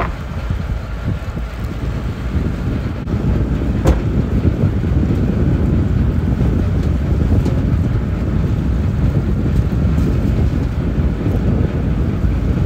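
Steady low rumble of wind buffeting the microphone, with a wooden fishing boat's engine running underneath and a few light knocks from the net and rope being hauled aboard.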